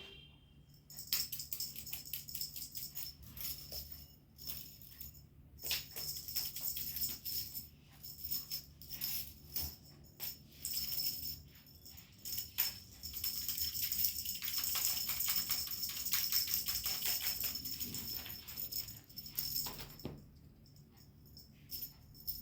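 Dense jingling rattle of small hard objects, a quick run of fine clicks that starts about a second in and dies away near the end, over a faint steady low hum in the first half.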